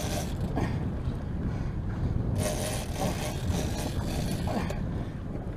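Steady low rumble of the fishing boat's motor with wind buffeting the microphone, and a brief rush of hiss about two and a half seconds in.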